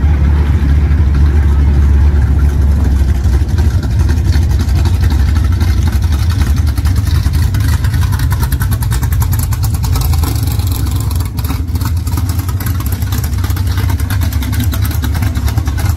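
Engines of classic cars running at low speed as they roll past, a steady deep rumble.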